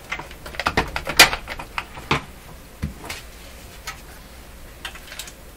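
Irregular metallic clicks and knocks as the receiver's chassis is worked and tugged against its cabinet, with a quick cluster in the first second or so, the loudest about a second in, then a few single knocks spaced out. The chassis is still held fast by hidden screws.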